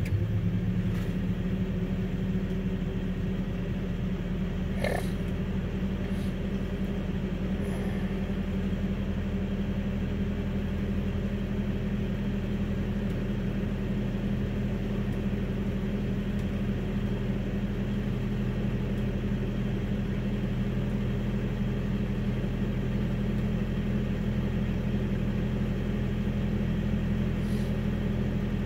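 Vehicle engine idling steadily while warming up after a winter cold start, with a brief faint squeak about five seconds in.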